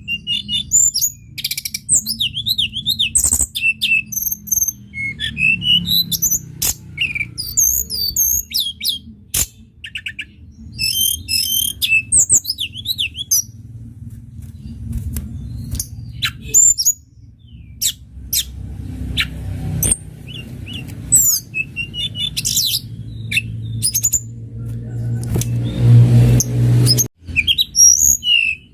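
Tledekan gunung singing a busy stream of high chirps, fast zigzag trills and sharp clicks. A low rumble runs underneath and grows louder near the end.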